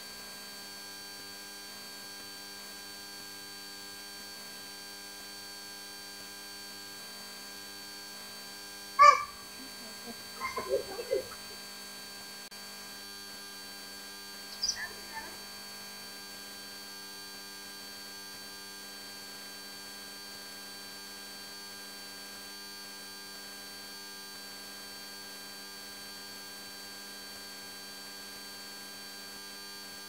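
A steady, even hum with many overtones runs throughout. About nine seconds in there is one short, loud pitched sound, followed by a few softer short pitched sounds around eleven and fifteen seconds.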